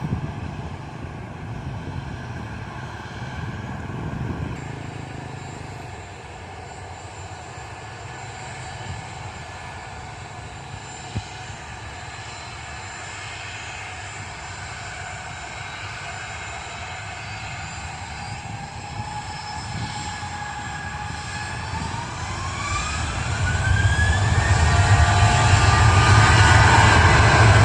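Airliner's engines running with a steady high whine, then spooling up: from about three quarters of the way in, the whine rises in pitch and the engines grow much louder, as at the start of a takeoff run.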